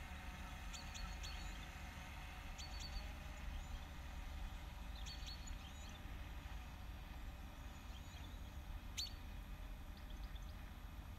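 Birds chirping now and then, short high calls scattered over a steady low rumble.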